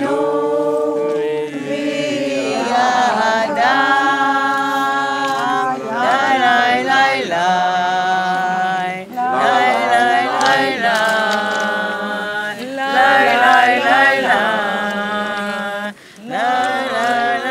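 A group of voices singing together unaccompanied, a slow melody with long held notes, broken by a short pause near the end.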